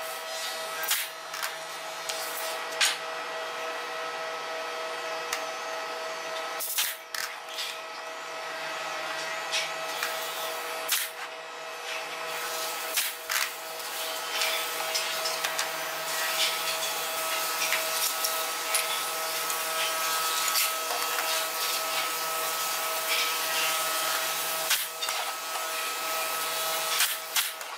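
Pneumatic brad nailer firing single shots into hardwood framing: several sharp clacks a few seconds apart, over a steady machine hum.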